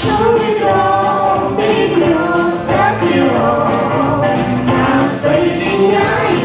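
A song playing: a sung melody over backing music, steady and loud.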